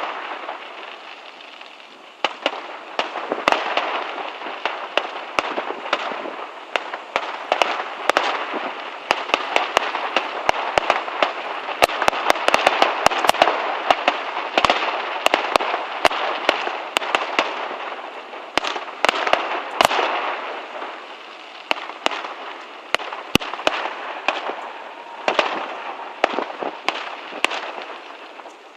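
Fireworks display: rapid sharp bangs over a dense, continuous crackling. It builds from about two seconds in, is densest midway, thins, flares briefly again, and fades near the end.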